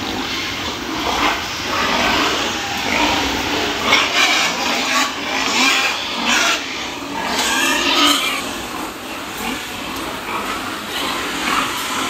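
Din of many crated sows in a pig barn, a dense mix of grunts and squeals, busiest in the middle.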